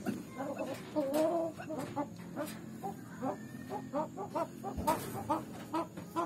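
Fowl clucking in short repeated notes, about four a second at times, with a longer wavering call about a second in. A single sharp knock about five seconds in.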